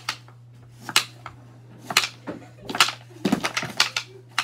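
Black pucks of a wooden Sling Puck board game being shot with the elastic band, making a quick, irregular series of sharp clacks as they hit the wooden board.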